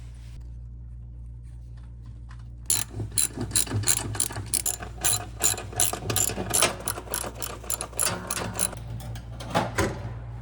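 Socket ratchet wrench clicking in quick strokes, driving bolts; the clicking starts about three seconds in and runs for about seven seconds.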